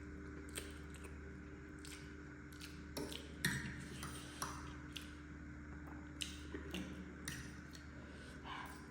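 Eating sounds over spicy noodles: scattered short clicks and taps of utensils against the bowl and mouth noises of chewing, the loudest tap about three and a half seconds in, over a steady low hum.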